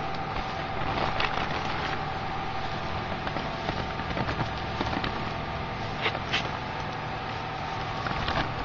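A steady machine hum runs throughout, with sharp crinkles from a plastic bag of cashews being handled close by: about a second in, around four seconds, twice near six seconds, and near the end.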